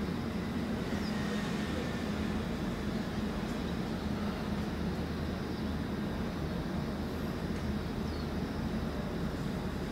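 Steady low drone of a coastal container ship's diesel engine under way, even and unchanging.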